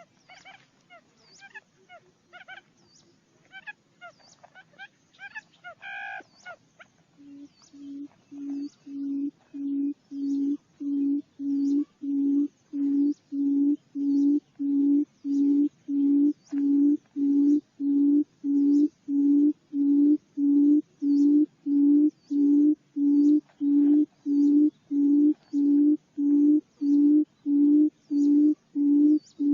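Barred buttonquail calling: a long series of low hooting notes, about one and a half to two a second, starting about seven seconds in, growing louder over the next few seconds and then holding steady. Before it starts there is only faint, high chirping.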